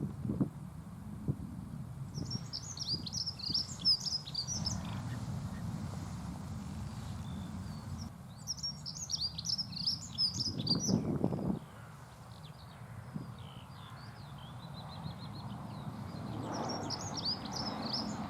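Dunnock singing: three bursts of its fast, high, jingling warble, each lasting about two seconds, with a short fainter trill between the second and third. A low background rumble runs underneath and swells for about a second after the second phrase.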